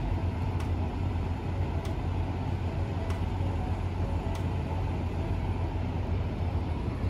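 Steady low hum of semi-truck diesel engines idling in a lot, with no change in pitch.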